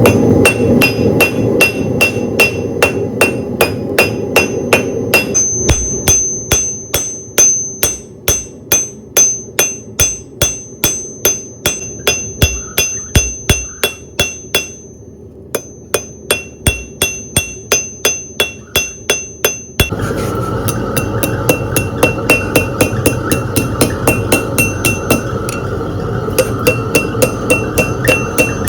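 Hand hammer striking 3/16-inch steel bar on an anvil while forging hooks. The blows come at an even rhythm of about two to three a second, each leaving a bright metallic ring, with a brief pause a little past halfway. A steady rushing noise sits underneath, louder in the last part.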